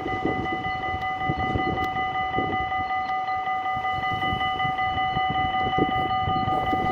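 Tram standing at a stop, giving off a steady whine of several fixed pitches over a low, uneven rumble.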